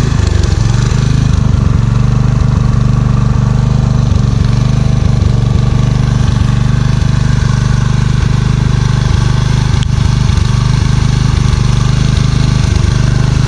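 Tiller's small engine running steadily, unchanged in pitch and level.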